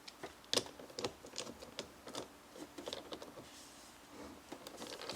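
Ratcheting 10 mm socket wrench clicking in light, irregular ticks, about two a second, as the nut is threaded back onto the burr shaft of a Breville Barista Express grinder.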